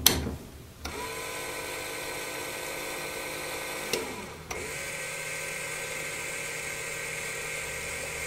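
Small DC gear motor whining steadily as it turns the variable capacitor of a magnetic loop antenna's remote tuner. It runs for about three seconds, stops with a click about four seconds in, then starts again half a second later and runs on.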